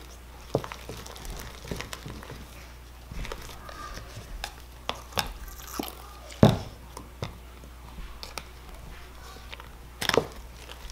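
Sticky homemade slime being kneaded and squeezed by hand in a plastic cup: irregular small wet clicks, crackles and squelches, with two louder squelches about six and a half seconds in and near the end.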